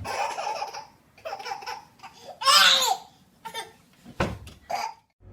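High-pitched laughter in several short bouts, the loudest a little past the middle.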